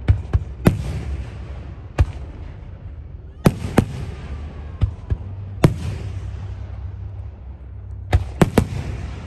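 Aerial fireworks shells bursting overhead: about a dozen sharp bangs at uneven intervals, some in quick pairs, each trailing off into a fading rumble.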